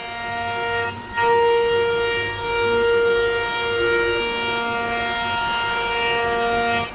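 CNC router's 9 kW HSD air-cooled spindle routing wood, a loud steady high whine with a stack of overtones. It dips briefly about a second in, comes back louder, shifts pitch slightly a few times as the cutter works, and cuts off abruptly at the end.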